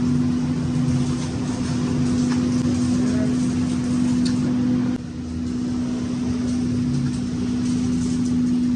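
A machine motor running steadily with a constant hum, briefly dipping about five seconds in and then carrying on unchanged.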